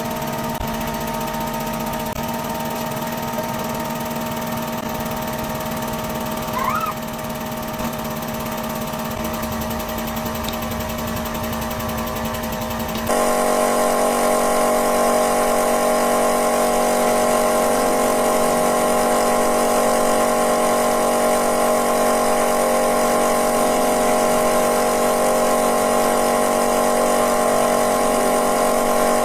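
Hydraulic press running: the steady hum of its pump as the ram presses down on a plastic squeeze bottle, with a brief rising squeak about seven seconds in. About thirteen seconds in it cuts to a louder, steadier hum as the press flattens a hollow plastic piece.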